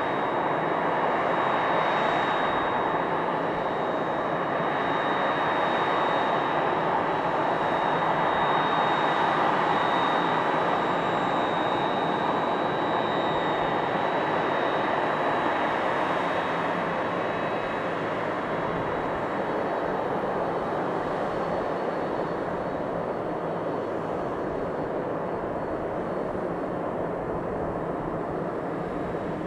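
Jet engines of a Boeing 767-300ER airliner running: a steady broad rush with a thin high whine on top. The sound swells a little about a third of the way in, then slowly fades.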